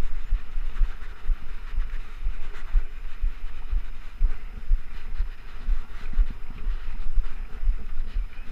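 A 2013 Trek Rumblefish Pro full-suspension mountain bike rolling fast over a bumpy dirt trail, heard through a chest-mounted action camera: an irregular low rumble and thumping from the trail, with a faint rattling buzz above it.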